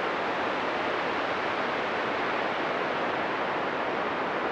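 Synthesized wind sound from a planetary sonification, playing the data for Mars: a steady hiss with little low end and hardly any rise and fall. The thin low end stands for Mars's thin atmosphere, and the lack of fluctuation for its low average wind speed.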